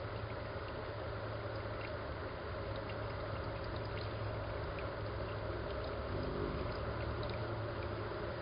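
Steady trickling and gurgling of water in a small backyard water feature, with a steady low hum underneath.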